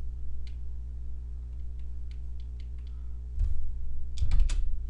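A steady low electrical hum runs under scattered faint ticks. A short run of computer keyboard keystrokes comes about three and a half seconds in, and a quicker run follows near the end.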